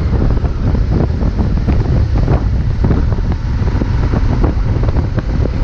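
Wind buffeting the microphone: a loud, steady low rumble with an uneven, gusty flutter.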